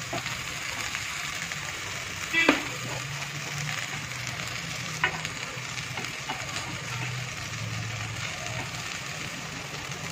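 Potato and fresh note shak (amaranth greens) sizzling steadily in oil in a kadai over a gas flame, with a steel spatula stirring the leaves. Two short sharp clicks, about two and a half and five seconds in, over the sizzle.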